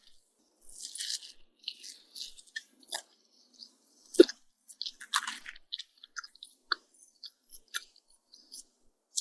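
Close-miked chewing of fried egg on toast: irregular crisp crunches and small wet mouth clicks. The loudest is a sharp crunch about four seconds in.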